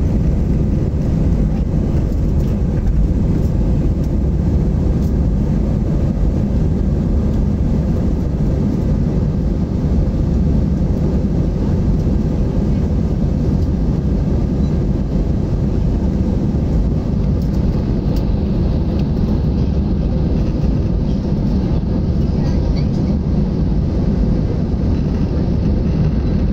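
Inside the cabin of a jet airliner climbing just after takeoff: the steady, loud low rumble of the engines at climb thrust and rushing air.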